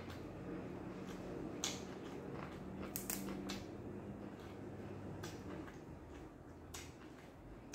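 Close-up eating sounds: sprigs of fresh raw vegetables and herbs rustling and snapping as they are picked by hand, with chewing and a few sharp crackles and clicks scattered through, over a low steady hum.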